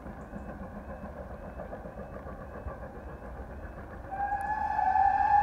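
Over a steady background hiss, the whistle of the GWR Manor-class 4-6-0 steam locomotive Odney Manor starts about four seconds in and holds one long, steady note. It is the usual warning as a train approaches a crossing.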